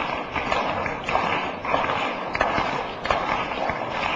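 Crowd applause: many hands clapping in a dense, uneven patter.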